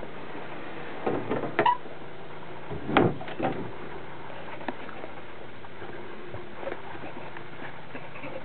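A few short knocks and bumps over a steady hiss: a cluster about a second in, the loudest around three seconds in, and a faint one a little later.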